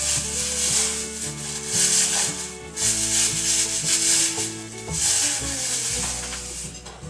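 Background music: a bass line and sustained melody notes over a rhythmic hiss of percussion.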